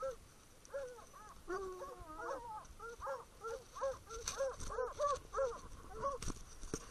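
Hunting hounds baying treed at a cougar: short rising-and-falling barks, several a second, from more than one dog at once, a sign that the cat is treed. A few sharp knocks come in the second half.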